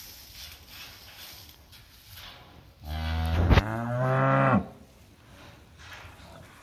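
A cow mooing once, a long low moo lasting about two seconds in the middle, with a sharp click partway through it.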